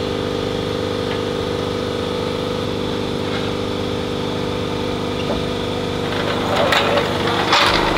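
An engine idling steadily at an even pitch, with a few sharp knocks near the end.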